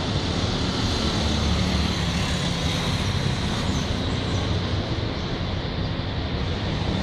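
Street traffic: a steady wash of vehicle engines and tyre noise, with a low engine hum throughout.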